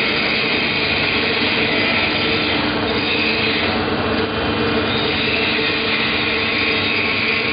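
JS500 twin-shaft concrete mixer running: a steady mechanical drone that holds at the same level without a break.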